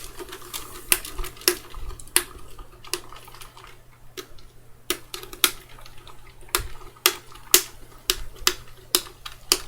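A person drinking a glass of ice water in steady gulps, with sharp clicks about every half second.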